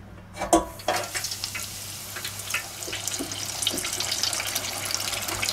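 Buttermilk-coated chicken pieces lowered in a wire basket into the hot oil of an electric deep fryer: a clack of the basket about half a second in, then the oil bubbling and sizzling hard around the wet pieces, a dense crackle that builds and holds.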